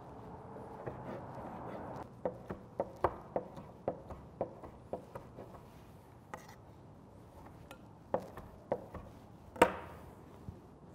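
Knife chopping smoked chicken on a wooden cutting board. After about two seconds of soft rubbing come steady knocks, about three a second, for several seconds. A few more strikes follow near the end, the loudest about a second before it finishes.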